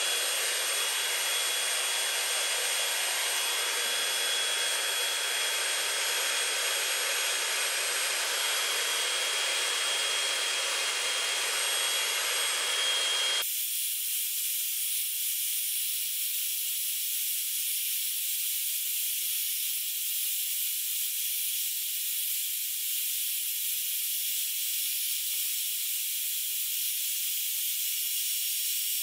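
Holz-Her Derby hand belt sander running steadily, a noisy rush with a thin high whine. About halfway through the sound changes abruptly to a thinner, steady hiss with the low part gone.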